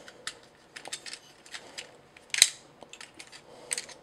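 Irregular clicks and clacks of a Fansproject Columpio transforming robot figure's plastic parts being twisted and snapped into place by hand. One sharp, louder clack comes about two and a half seconds in.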